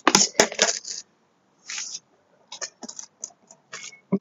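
A cane clacking against plastic traffic cones in a string of sharp hits, with cones scraping and knocking across concrete pavement in between.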